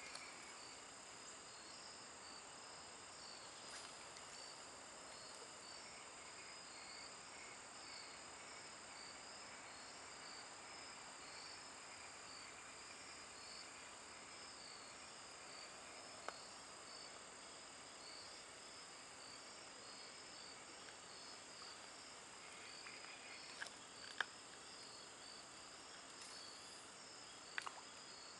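Crickets chirping faintly, a high, even chirp repeating steadily. A few short, sharp clicks come in the second half.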